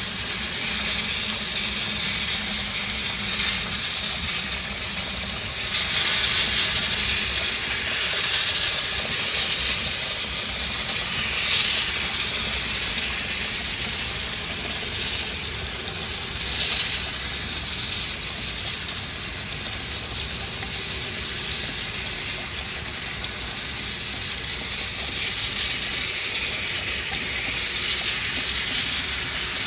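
Water pouring from an open brass ball valve into a plastic bucket, a steady splashing stream that swells louder a few times; it is water drained off the bottom of a crane's gear oil sump.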